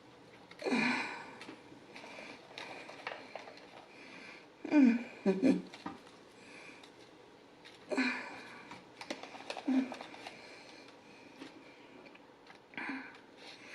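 A woman's short wheezy breaths and wordless vocal sounds, five or six times, with faint clicks and taps between them.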